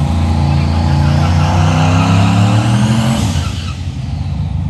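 Drag-racing truck doing a burnout: the engine is held at high revs and climbs steadily in pitch while the rear tyres spin and hiss against the track, then the revs drop off a little over three seconds in.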